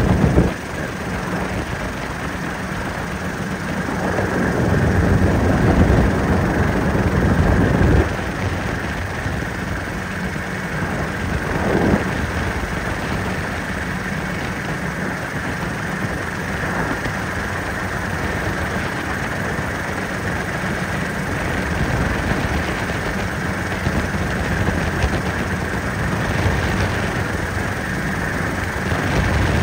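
Helicopter in flight: steady engine and rotor noise. It swells for a few seconds and drops suddenly about eight seconds in.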